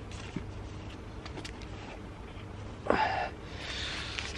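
Faint rustling and small clicks of hands filling a clear bait bag with maggots, with a short breathy gasp about three seconds in.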